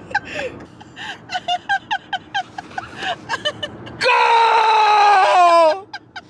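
A woman laughing hard: a fast string of short 'ha' bursts, then, about four seconds in, a long, high, squealing laugh that slowly falls in pitch and breaks off.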